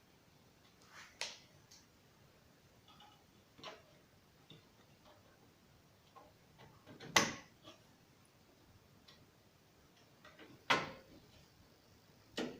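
Scattered sharp clicks and knocks of computer parts and case hardware being handled during a PC assembly, about five in all, the loudest about seven seconds in and another strong one near eleven seconds.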